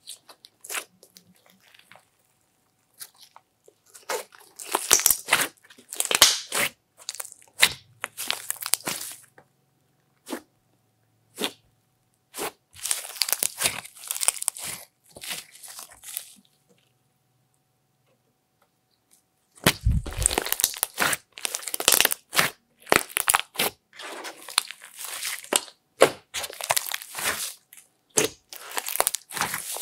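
Hands squeezing, folding and stretching a large mass of glittery slime mixed with clay, giving bursts of sticky crackling and popping. The bursts come in handfuls, with short pauses between them and a longer pause a little past the middle.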